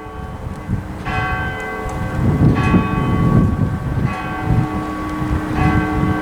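A single cathedral bell, which the ringer believes is the clock's hour bell, tolling one stroke about every one and a half seconds: four strokes, each humming on as the next lands. It is striking far more than the twelve strokes of the hour, unexplained, and the ringer wonders whether the clock has malfunctioned.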